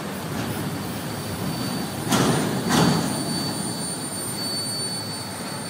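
Double-stack intermodal well cars rolling slowly through a grade crossing, a steady rumble of wheels on rail with two loud clunks less than a second apart near the middle as the wheels pass over the rail. A faint, thin high whine runs under it.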